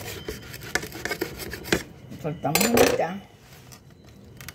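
A kitchen knife clicking and clinking against a dish as a folded tortilla wrap is cut in half, a run of sharp ticks in the first couple of seconds. A short bit of voice comes about two and a half seconds in.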